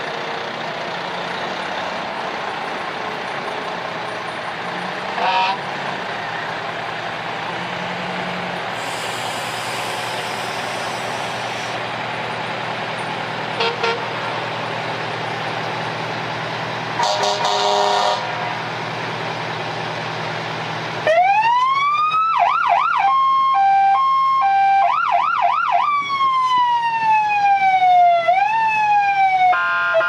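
Emergency vehicle engines running in a slow procession, with a few short horn blasts. About two-thirds in, an electronic siren starts up loud: a rising wail, then quick yelps and a two-tone hi-lo, then slow falling wails.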